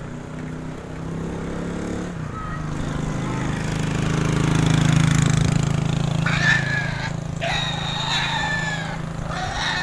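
A motor engine drones, growing louder to a peak about halfway through and then fading as it passes. In the second half a rooster crows several times, drawn-out calls that rise and then fall away.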